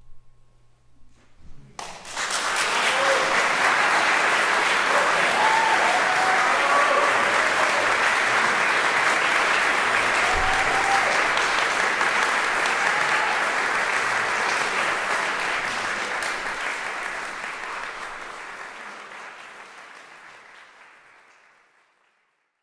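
The last notes of a classical guitar ring and die away, then an audience applauds. Steady clapping starts about two seconds in, with a few voices calling out, and slowly fades away over the last several seconds.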